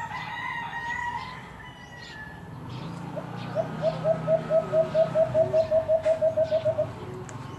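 Rooster crowing, one long call dipping slightly in pitch, followed about a second later by a rapid run of some sixteen short repeated calls, about five a second.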